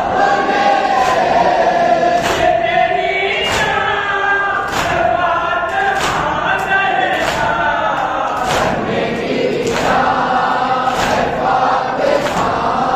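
Crowd of men singing a Muharram noha lament in chorus. Matam chest-beats, struck together by the mourners, land on the rhythm about once every 1.2 seconds.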